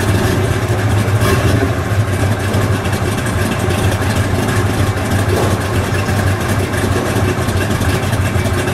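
Stroked big-block Chrysler 440 V8, bored and stroked to 496 cubic inches, with three Stromberg 97 carburetors on an Offenhauser six-pack manifold, idling steadily through its exhaust.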